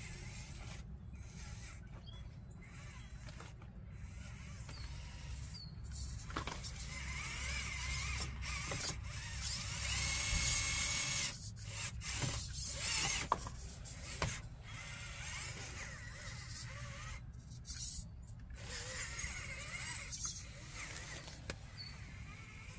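Hobby Plus Arktos RC crawler truck's small electric motor and geared drivetrain whining as it crawls over logs and rocks, coming and going in short spells and loudest about ten seconds in.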